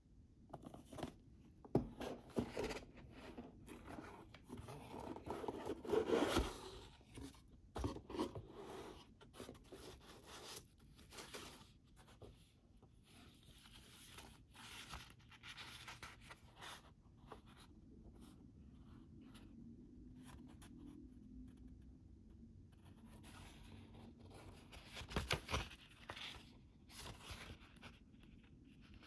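Hands handling a cardboard product box and its packing: irregular scraping, rustling and tapping of cardboard, foam wrap and a paper manual being lifted out. The louder bursts come about six seconds in and again near the end.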